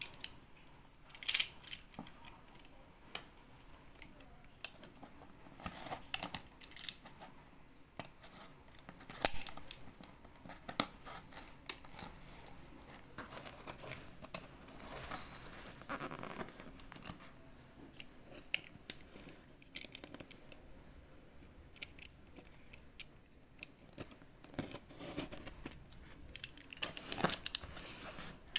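Cardboard parcel being handled and its packing tape cut with a box cutter: irregular clicks, taps and scraping of the blade on cardboard, busier near the end.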